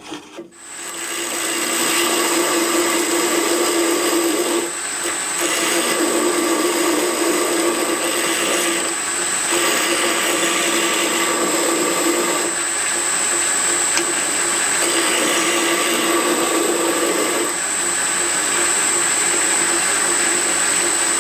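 MP knife maker's belt grinder running a fine belt over a small-diameter wheel, with a steady high whine, as knife steel is ground against the wheel to shape the internal radii of a handle. The grinding noise eases briefly a few times as the work is lifted off and pressed back on.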